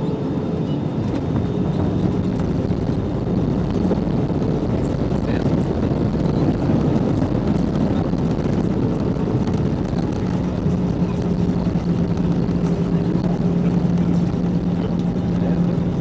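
Steady hum of a jet airliner's engines and airflow heard inside the passenger cabin while the plane is on the ground after landing. A low droning tone grows stronger about ten seconds in.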